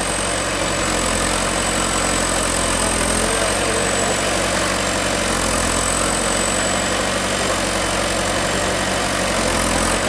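A JCB backhoe loader's diesel engine running steadily while its rear backhoe digs soil, with a thin high whine over the engine.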